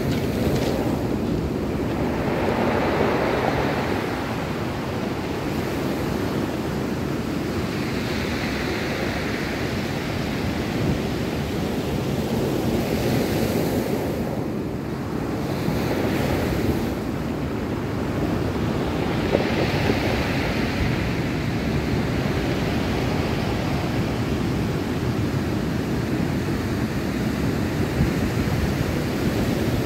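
Sea surf breaking and washing up a pebble beach, a continuous rush that swells every few seconds as each wave comes in, with wind on the microphone.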